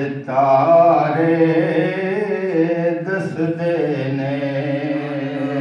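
A man singing a Punjabi naat unaccompanied into a microphone, his voice gliding between long held notes and settling on one long note in the second half.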